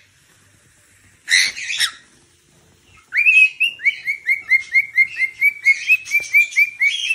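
Cockatiel giving one loud harsh screech about a second in, then a fast, even run of short chirps, about four a second.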